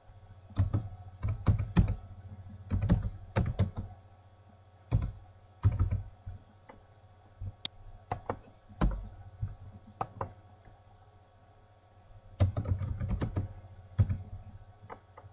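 Typing on a computer keyboard: short runs of keystroke clicks separated by pauses of a second or two.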